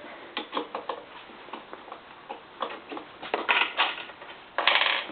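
Drill press chuck being worked with a chuck key: a run of irregular light metal clicks, then a louder rattling scrape near the end.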